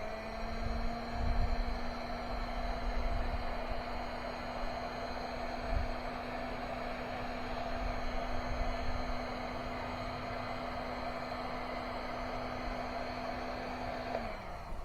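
A small electric motor, likely a hand-held power tool, running at a steady pitch for about fourteen seconds, then switched off and winding down near the end, with a few low knocks underneath.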